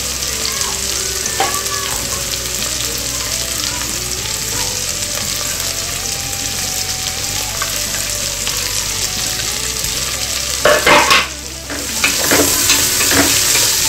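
Sliced onions sizzling as they fry in hot mustard oil in an aluminium pressure cooker. About eleven seconds in come a few loud clatters, then a wooden spatula knocking and scraping the pot as the onions are stirred.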